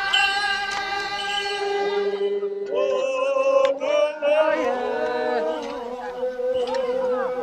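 A group of voices singing a slow, chant-like song, several long notes held at once, the voices moving to a new held pitch about three seconds in.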